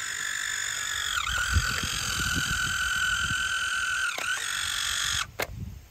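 MiNT InstantKon RF70's film-eject motor running with a steady high whine as it drives an Instax Wide print out of the camera. The pitch dips briefly twice, then the motor cuts off about five seconds in, followed by a single click.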